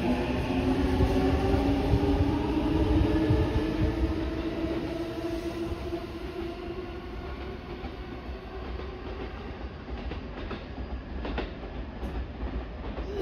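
Electric train running on the line: a motor whine that rises slowly in pitch as it picks up speed, over wheel-on-rail rumble. The whine fades after about half the time, and a few wheel clacks over the rail joints follow near the end.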